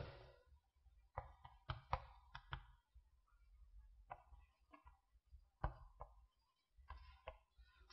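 Faint, irregular light taps and knocks, about a dozen, in small clusters separated by near silence.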